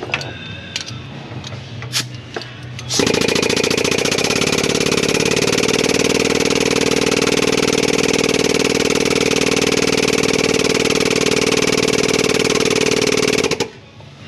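A power tool running without a break for about ten seconds, with a fast, even rattle. It starts suddenly about three seconds in and cuts off suddenly near the end.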